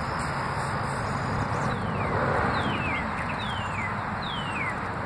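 Outdoor ambience: a steady low rumble and hiss, with a bird giving a falling whistled call four times, a little under a second apart, starting about two seconds in.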